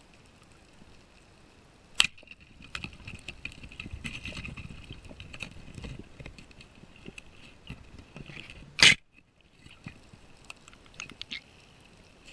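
Heard underwater: a sharp speargun shot about two seconds in, then several seconds of irregular clicking, rattling and scraping of the spear shaft against the rock, with a second loud knock at about nine seconds.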